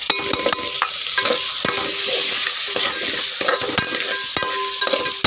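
Chicken pieces sizzling in hot oil in a metal pot while a metal spoon stirs in the spice paste. The spoon scrapes and clicks against the pot with short squeaky scrapes.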